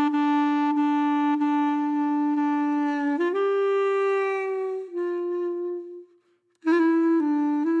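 Background music: a slow melody played on a solo woodwind instrument, with long held notes that step up and then down. It breaks off briefly about six seconds in, then goes on with shorter notes.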